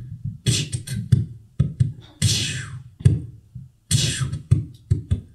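Vocal percussion from a performer's mouth: a quick, uneven run of short breathy puffs, pops and hisses, like beatboxing, with one longer hiss about two seconds in.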